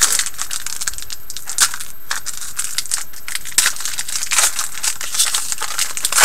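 Foil wrapper of a Panini Select hockey card pack being torn open and crinkled by hand: an irregular run of sharp crackles and rustles.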